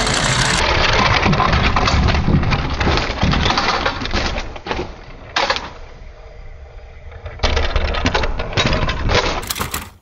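Die-cast metal toy cars rattling and clattering as they roll over a plywood board, with sharp crashing and breaking noises. The noise is dense for the first half, quieter in the middle, broken by one sharp crash about five seconds in, loud again near the end, and cuts off suddenly.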